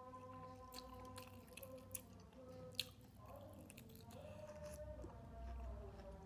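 Faint, close-miked mouth sounds of someone chewing bakso meatballs and rice vermicelli, with a few sharp wet clicks and smacks.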